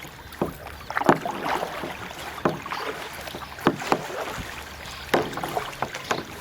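Kayak paddle strokes on calm water: the blade dipping in and pulling through with short splashes and drips, about one stroke every second and a half.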